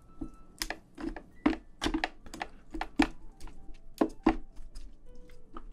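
A spoon mashing and stirring rice inside a soy-marinated crab shell. Irregular sharp taps and scrapes, about two or three a second, come from the spoon against the shell.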